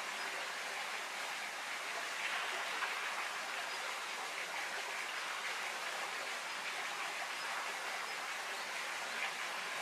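Steady, even background noise like a hiss, with no distinct hits or voices standing out.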